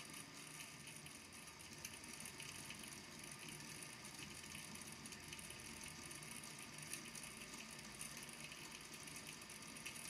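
Small balls in a volcano lamp's water tank ticking as they land on the tank's base, a faint continuous run of many little clicks.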